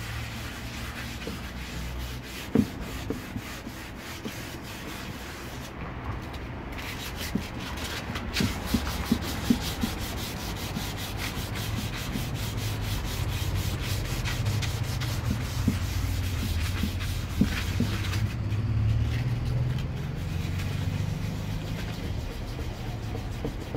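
Sandpaper rubbed back and forth by hand over the wet plastic shell of a motorcycle top case: a continuous rasping scrub, with a few light knocks now and then.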